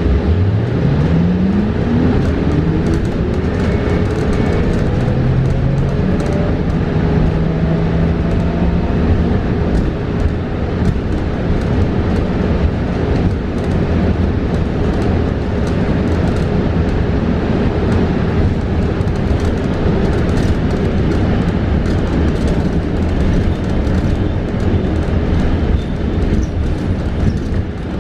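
Electric traction motor of a New Flyer XE40 battery-electric bus, heard from inside the cabin: a whine rising steadily in pitch as the bus accelerates over the first several seconds, then fading into the ride. Under it run steady road and cabin rumble and a constant hum.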